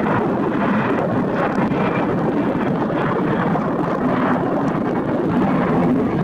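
Steady roar of jet airliner engine noise mixed with wind buffeting the microphone.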